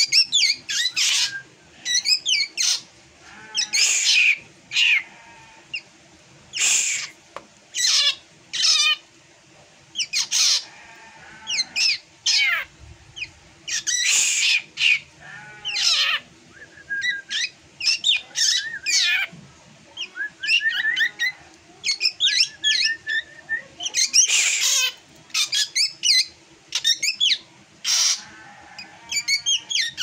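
Caged drongo calling: a long string of short, harsh squawks and chirps coming every second or so, with quicker chirping runs midway through. This is a call the uploader calls strange and unlike the bird's usual song.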